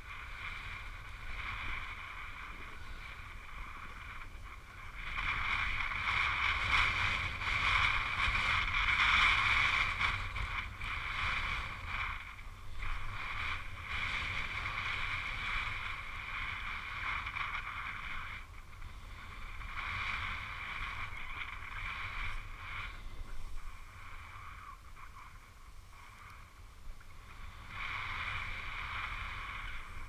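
Snow hissing and scraping under a downhill descent on a ski slope, surging louder and softer with the turns and loudest for several seconds from about five seconds in, over a low rumble of wind on the microphone.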